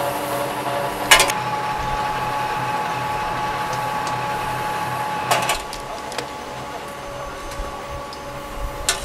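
Multi-spindle rotary machine running with a steady hum and a high whine, cutting truck wheel nuts. Sharp clacks come about a second in and again past the halfway point, and the running is quieter after the second one.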